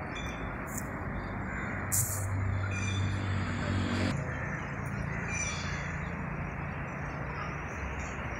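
Outdoor background noise with a steady murmur of voices.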